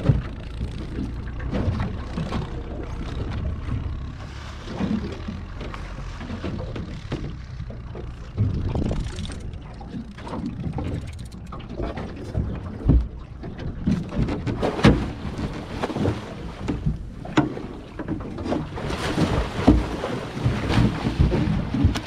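Wind buffeting the microphone over water lapping and splashing against a small boat's hull, the splashing louder near the end. Sharp knocks are scattered through the second half.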